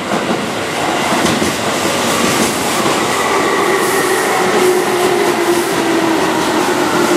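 Keihan Electric Railway electric commuter train (formation 1505) rolling past on a curve, its wheels clacking over rail joints. About three seconds in, a steady whine joins the rolling noise.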